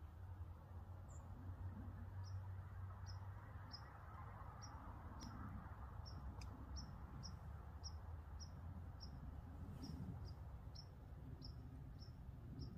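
A small bird giving short, high chip calls, repeated at uneven spacing about two a second from about two seconds in, faint over a low background rumble.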